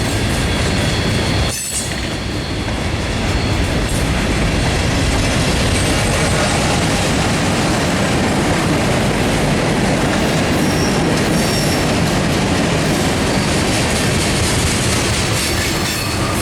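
Norfolk Southern mixed freight train's cars rolling past as the train coasts downgrade: steady, loud rumble and clatter of steel wheels on the rails, with faint wheel squeal.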